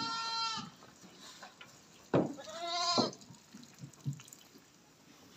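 Two bleats from a goat or sheep: a steady one right at the start, then a louder one about two seconds in that begins harshly and bends up and down in pitch.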